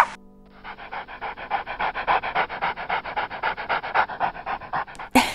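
Dog panting rapidly, about eight quick, even breaths a second, starting about half a second in and stopping shortly before a brief louder sound at the very end.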